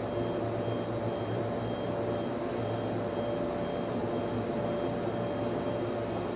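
Server room ambience: the steady whir and hum of server and network-switch cooling fans, with a faint high-pitched tone that pulses on and off during the first half.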